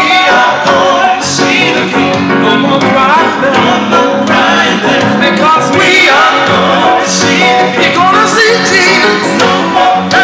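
Gospel music: a grand piano playing with male voices singing and ad-libbing over it.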